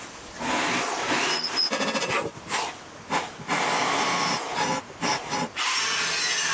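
Electric drill boring into a sheet-steel box, then an angle grinder's cutting disc slicing into the steel, heard in short snatches broken by several brief gaps.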